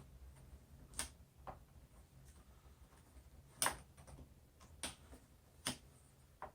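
About six light, irregularly spaced clicks and taps of tweezers and small rubber screw gaskets being pressed into the back of a small plastic speaker, the loudest a little past the middle, over a faint steady low hum.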